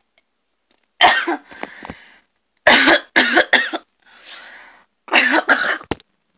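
A girl coughing in bouts: one cough about a second in, a quick run of three around the middle, and two more near the end, with faint breaths between. It is a cold-type cough, from a cold she feels she may be getting.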